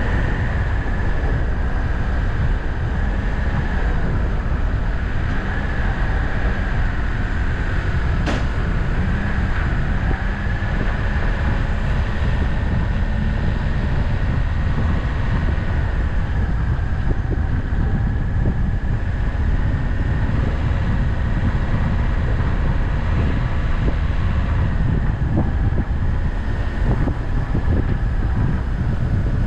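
A road vehicle travelling at a steady pace: constant engine and road rumble with a steady high hum, and wind on the microphone. There is a single sharp click about eight seconds in.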